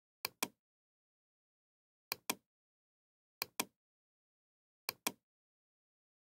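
Computer mouse button clicked four times, each click heard as a pair of sharp ticks from press and release.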